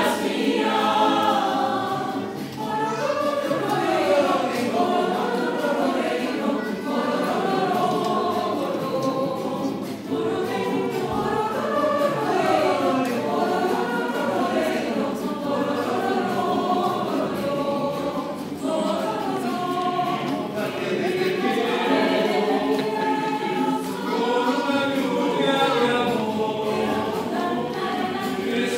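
Mixed choir of women's and men's voices singing a cappella, the voices continuous throughout.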